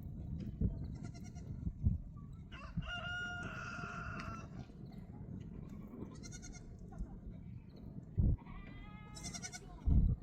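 A rooster crows once, a long call a few seconds in, and a goat bleats with a rising call near the end, over a steady low rumble.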